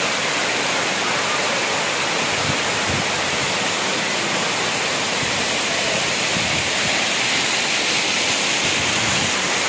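Water pouring down a waterfall and splashing onto rock: a steady, even rush of water that does not change.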